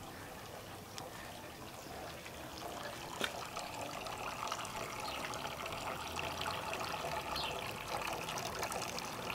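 Small two-tier stone garden fountain trickling, a thin stream of water spilling from the upper basin into the lower bowl, growing louder about a third of the way in. A single brief click a little after that.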